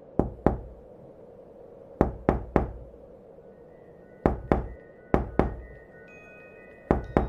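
Loud, echoing knocks in groups of two and three, each stroke about a third of a second apart, with pauses of a second or two between groups. Faint ringing chime tones come in about halfway, over a low steady ambient drone.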